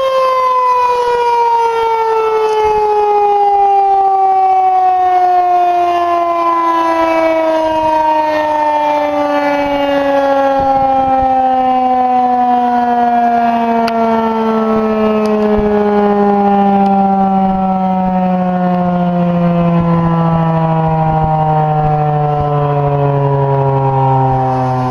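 Federal Signal 2001-130 electromechanical tornado siren winding down at the end of its test, its loud wail falling slowly and steadily in pitch as the rotor coasts to a stop.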